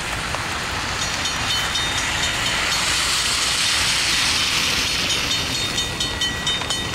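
A railroad crossing warning bell starts ringing about a second in, a rapid run of repeated high dings that grows clearer toward the end, as the crossing's warning activates for an approaching train. Under it runs a steady hiss of rain and wet-road noise that swells in the middle.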